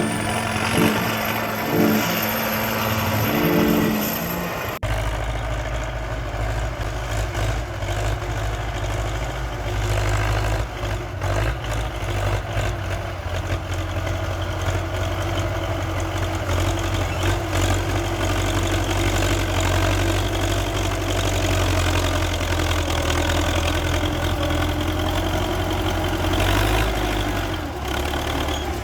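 A few seconds of music, then after a sudden cut an MTZ Belarus 892.2 tractor's four-cylinder diesel engine running steadily under ploughing load, its pitch drifting slowly up and down.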